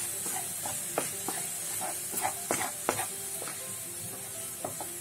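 Tomato-onion masala sizzling in oil in a pan, stirred with a wooden spatula. A steady high sizzle runs under irregular scrapes and knocks of the spatula against the pan, which are thickest in the first three seconds. The tomatoes have fully broken down and the spiced masala is being fried.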